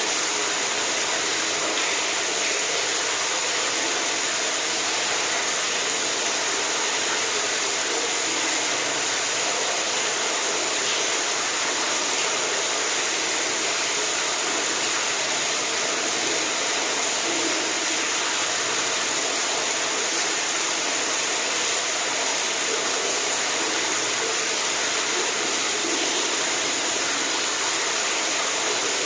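Running water rushing steadily: an even hiss with no breaks or changes.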